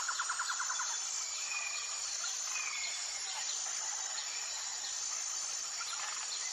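Birds singing and calling over a steady, high-pitched insect drone. A fast trill ends about a second in, followed by scattered short chirps and whistles.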